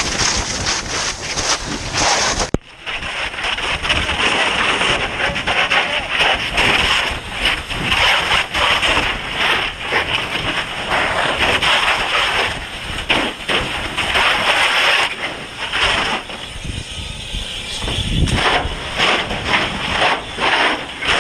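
Fire hose nozzle spraying a stream of water onto burning debris: a loud, steady rushing hiss. It breaks off briefly about two and a half seconds in.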